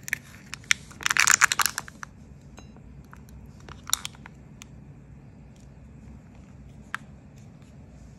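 Plastic film crinkling and crackling as it is peeled back off the surface of a tin of letterpress ink: a dense burst of crackling about a second in, then a few scattered sharp crackles and clicks.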